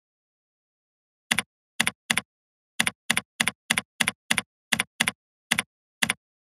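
Computer keyboard keystrokes: thirteen separate keypresses at an uneven pace, each a short sharp click, as a password is typed in. The clicks stand out against dead silence.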